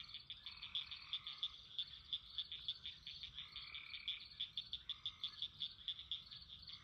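A faint chorus of frogs calling at night after rain: short high calls repeating about four or five times a second, with longer, lower trills of about a second each coming in over them.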